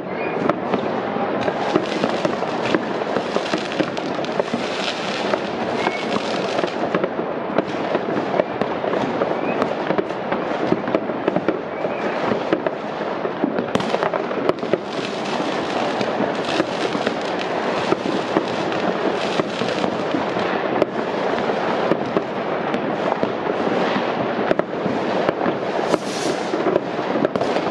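Many fireworks going off at once: a dense, unbroken stream of bangs and crackles from rockets bursting and firecrackers popping, with no pause between them.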